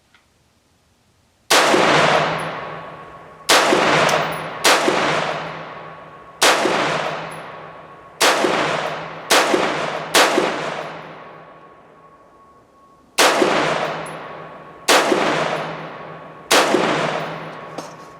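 Bear Creek Arsenal BC-15 AR-15-type rifle with a 16-inch barrel fired slowly in semi-automatic, ten shots at uneven intervals of one to three seconds, each ringing out in a long echoing tail. The rifle is shooting 62-grain 5.56 ammunition.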